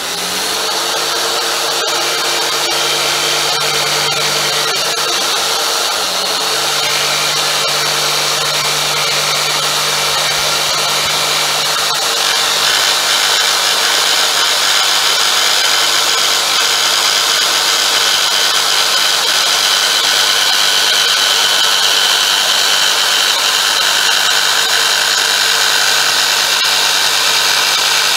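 Jigsaw fitted with a scroll blade starting up and cutting steadily through half-inch MDF along the curves of a letter. The motor runs at an even pitch, a little louder after about twelve seconds.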